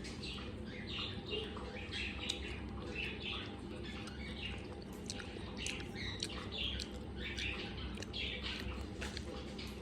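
Pet parrot giving a string of short chirps and squawks, several a second.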